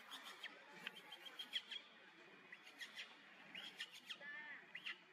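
Faint high-pitched animal chirps and short squeaky calls, several a second, with one longer arching call about four seconds in.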